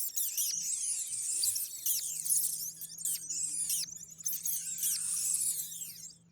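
Rats squeaking: a rapid, busy string of high-pitched chirps and squeaks, many falling in pitch, that stops just before the end.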